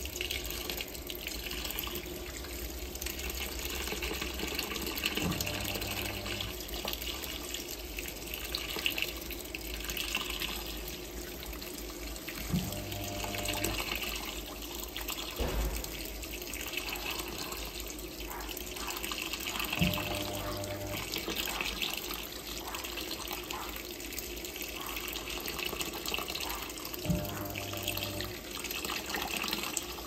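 Hot water pouring steadily into the tub of a Hoover Electronic 220m top-loading washing machine as it fills for the main wash. About every seven seconds, four times in all, a click is followed by about a second of low motor hum as the load is moved.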